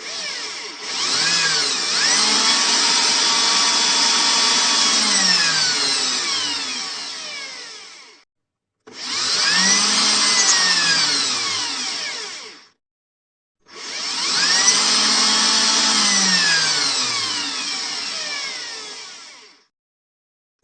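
Power drill run three times: each time the motor spins up with a rising whine, runs at speed, then winds down with a falling pitch before cutting off.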